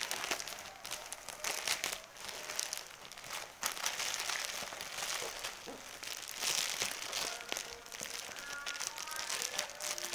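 Thin black plastic bag crinkling and rustling in irregular bursts as it is pulled open and folded back from a stack of plastic-wrapped packets.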